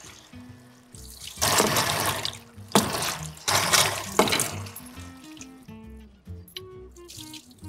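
Tap water running and splashing over peeled potatoes on a plate as they are rinsed under a kitchen faucet, in several loud surges over the first half; the water then stops, leaving soft background music.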